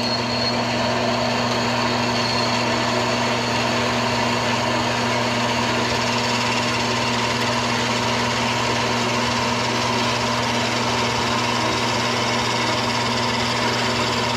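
Horizontal metal-cutting band saw running with a steady hum while its blade cuts through a steel all-thread rod.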